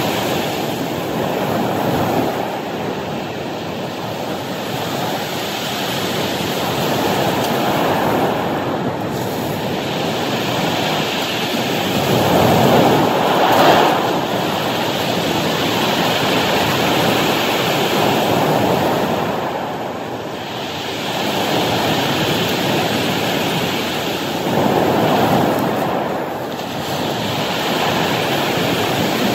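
Ocean surf breaking on a beach of rounded cobbles: a steady wash of noise that swells and eases every five or six seconds as each wave comes in, the biggest about halfway through.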